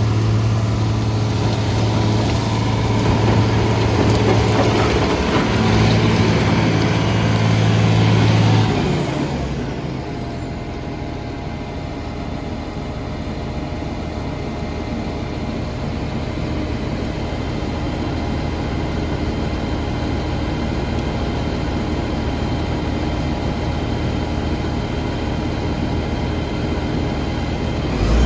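Diesel engine of a John Deere earthmoving machine running steadily under work. About nine seconds in, the sound drops in level and the deep engine tone gives way to a lighter, steady running sound.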